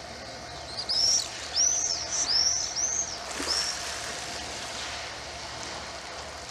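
A bird calling outdoors: about six short, high, arched notes from about a second in until nearly four seconds, then only a steady faint background hiss.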